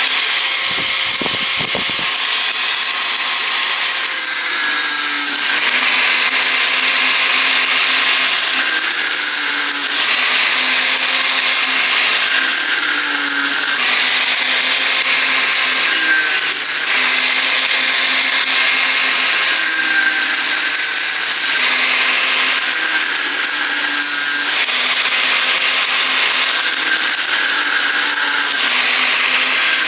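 Electric grinding machine cutting through the copper windings of a burnt ceiling-fan coil, its motor running steadily throughout. The cutting noise swells and eases every three to four seconds as the disc bites into one point after another.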